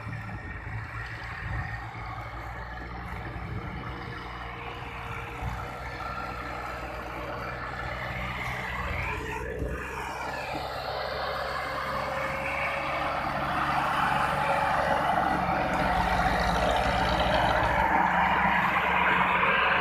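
Farm tractor engine running under load while pulling a loaded trolley over dirt, getting louder in the second half.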